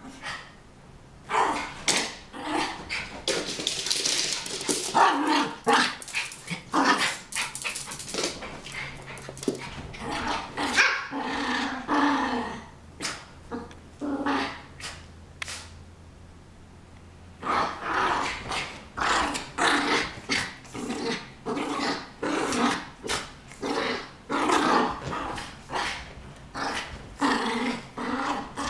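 Two small poodles play-fighting, with rapid runs of short barks and growls. There is a lull about halfway through before the barking and growling pick up again.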